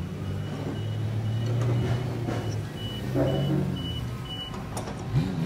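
Truck engine running steadily with a backup alarm beeping about twice a second, the beeping stopping about four and a half seconds in.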